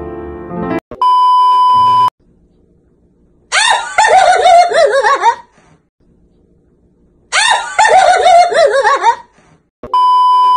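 A steady test-tone bleep for about a second, then two loud bursts of shrieking, about two seconds each, then the same bleep again near the end with TV colour bars, used as a transition. A few notes of piano music end just before the first bleep.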